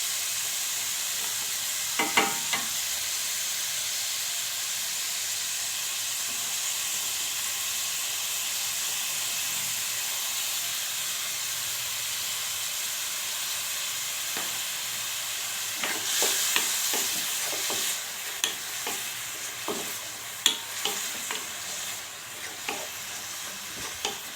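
Chopped onion sizzling in hot olive oil in a pan, a steady hiss. There are a few knocks about two seconds in, and from about two-thirds through a utensil taps and scrapes repeatedly as the onion is stirred, while the sizzle eases a little.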